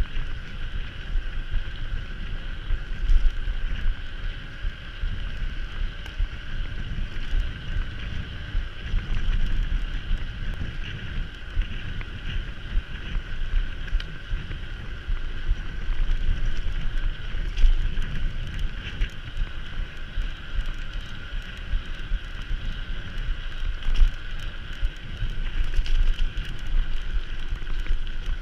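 Wind rushing over the microphone on a moving mountain bike, over a steady whir from the bike, with a few sharp knocks and rattles.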